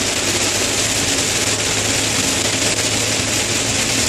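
Heavy rain and wet-road spray on a moving vehicle, heard from inside, over a steady low engine hum.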